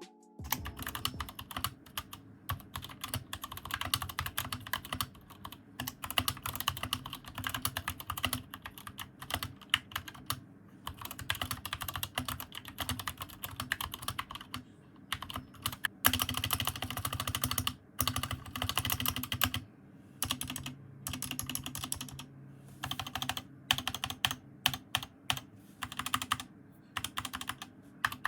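Typing on an Epomaker SK61s 60% mechanical keyboard with Gateron optical switches: a fast, steady stream of keystroke clacks with a few short pauses.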